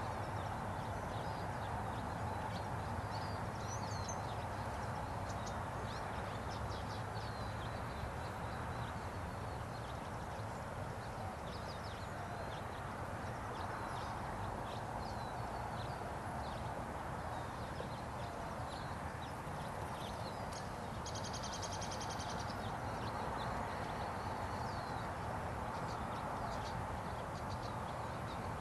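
Steady low hum and hiss of outdoor background, with many short, faint, high chirps from birds scattered throughout. About two-thirds of the way through comes a rapid trill lasting about a second.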